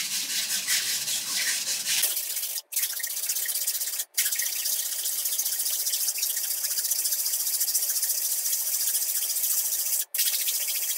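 Wire whisk scraping fast against a fine-mesh metal strainer, working beaten raw eggs through it into a metal bowl: a steady, rapid, scratchy rasping that breaks off for an instant three times.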